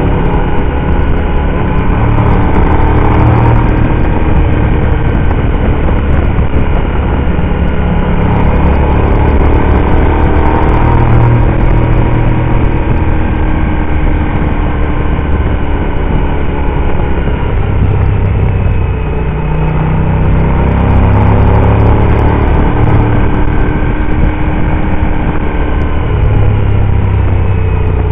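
Motorcycle engine running while under way, its pitch rising and falling repeatedly with the throttle through the curves, heard from behind the windscreen.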